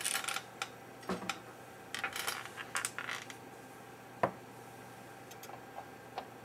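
Small hard objects being handled on a workbench: scattered light clicks, clinks and scrapes in two clusters, then one sharp tap about four seconds in.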